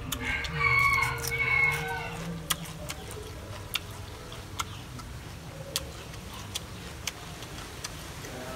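A rooster crowing once, about two seconds long, near the start. After it come scattered sharp clicks, about one a second, from chewing.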